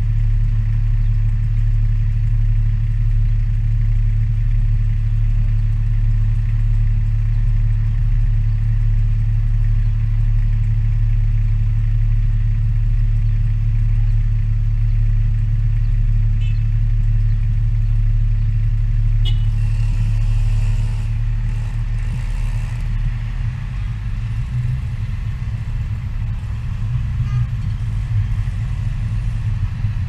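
Car engine and road noise heard from inside the cabin while driving: a steady low drone. About two-thirds of the way through it turns uneven and a little quieter.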